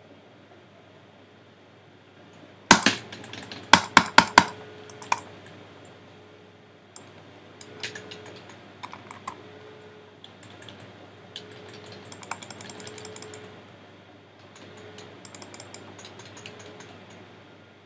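Computer keyboard typing and mouse clicks: a burst of loud clicks a few seconds in, then scattered single clicks and two quick runs of key taps in the second half.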